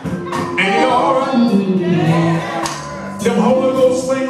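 Male gospel vocal group singing together, backed by a live band.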